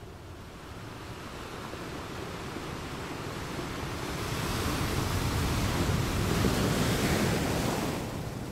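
A steady rushing noise, like surf or wind, that swells over a few seconds and eases again near the end.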